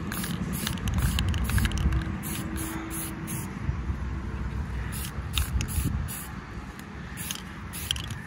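Aerosol spray paint can spraying in a series of short hissing bursts, a quick run of them, a pause of about a second and a half, then several more, over a low rumble.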